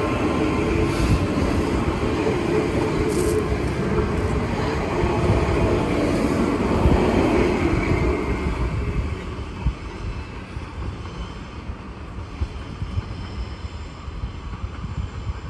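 Train running on the rails, a dense rumble of wheels and running gear that eases down about nine seconds in.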